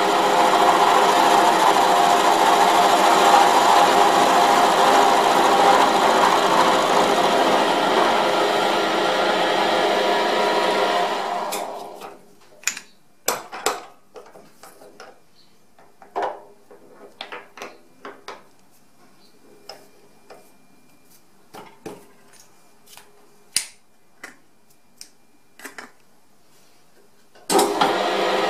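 Milling machine running steadily while the end mill cuts a flat on a round metal shaft held in a collet indexer. It spins down about 11 seconds in, giving way to a series of sharp metal clicks and knocks as the vise and indexer are handled to turn the shaft to the next flat. The machine starts up again suddenly about a second before the end.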